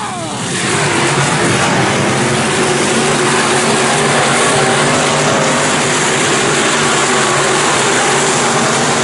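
A pack of IMCA Northern SportMod dirt-track race cars with V8 engines running hard past the camera: several engines overlapping in one loud, continuous din that swells up about a second in and then holds steady.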